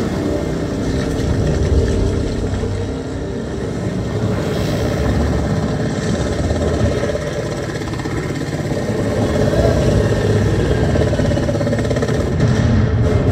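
Deep, steady engine rumble of attack helicopters approaching, in a film sound mix, growing a little louder in the second half.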